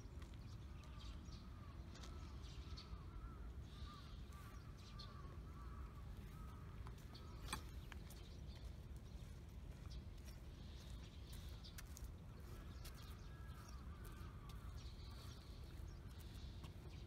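Faint outdoor ambience: runs of short bird calls, over a steady low rumble, with scattered light clicks.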